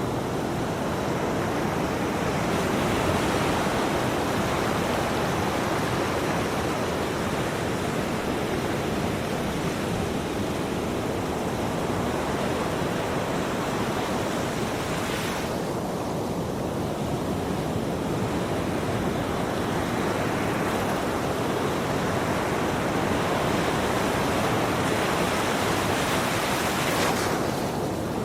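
Ocean surf: a steady rushing wash of waves, with a hissier swell of breaking water about halfway through and again near the end.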